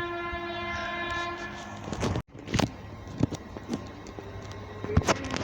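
Train horn sounding one steady note for about two seconds. After an abrupt cut come scattered clicks and knocks over a low rumble.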